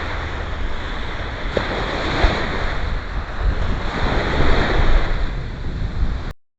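Ocean surf breaking and washing up the beach in swells, with wind buffeting the microphone in a low rumble. The sound cuts off abruptly near the end.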